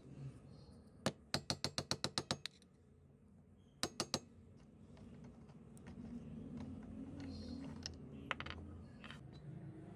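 A quick run of about nine sharp metal clicks, then three more, as a screwdriver works at the centre screw of an old cast-iron sewing machine handwheel. Later comes a low rubbing sound with a few clicks as the handwheel hub is turned by hand.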